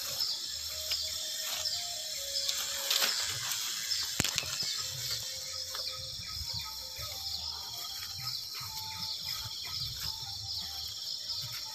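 Footsteps and brushing through wet garden plants, with scattered clicks and low thumps as the camera is carried. Insects chirp steadily underneath, with a few short bird calls.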